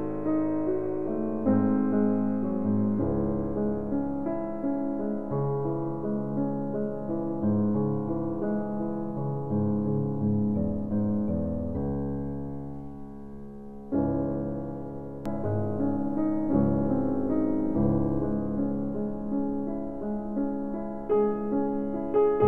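Slow relaxation piano music: sustained, mellow chords that change every second or two. Just past the middle it fades down, then a new phrase comes in sharply.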